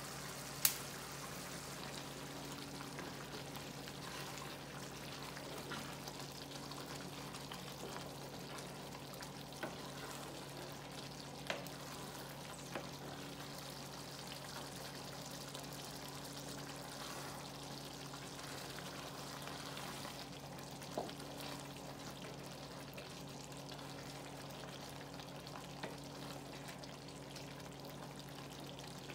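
Pot of sweet potato leaf stew in palm oil and peanut sauce cooking on the stove, a steady sizzling hiss broken by a few sharp pops. A low steady hum runs underneath.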